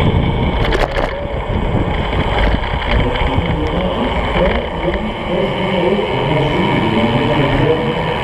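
Wind rushing over the microphone of a camera mounted on a Brompton folding bicycle riding at speed on the track, with a steady low rumble of tyres on asphalt. A brief rattle of clicks about a second in.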